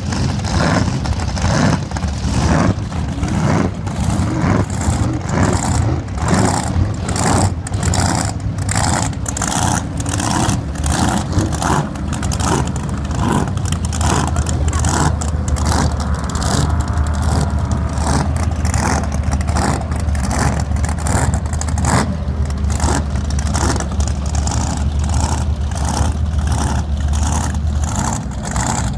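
Drag boat engines warming up on the water: a loud, lumpy idle that pulses about twice a second. A deeper steady engine note comes in about halfway and stops near the end.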